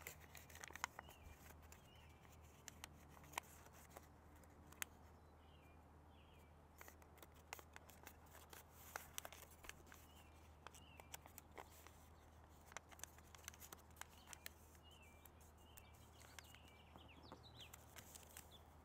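Near silence broken by faint crinkling and small crisp clicks as a sheet of origami paper is folded and creased by hand. A low steady hum runs underneath.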